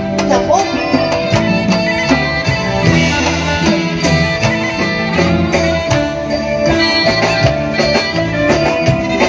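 Live music accompanying a nang talung shadow-puppet show: a band playing, with many sharp percussion strikes over shifting bass notes and a steady held high note.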